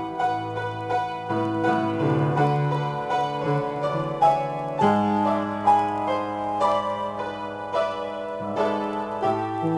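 Solo piano improvisation: held low bass notes that shift a few times, under a steady run of struck chords and melody notes.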